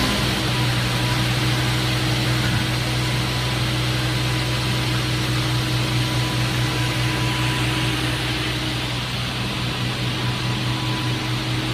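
SCM M2 220/120 crawler-feed multi-rip saw running steadily: a low, even motor hum with the whir of the saw blades and feed track, holding level throughout.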